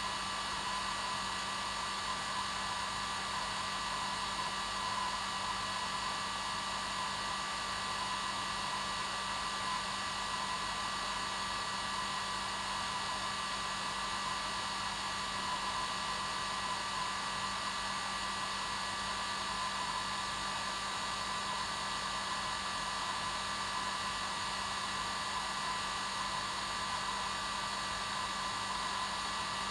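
Hair dryer running continuously at a steady speed: an even rushing hiss of air with a constant motor whine, unchanging throughout.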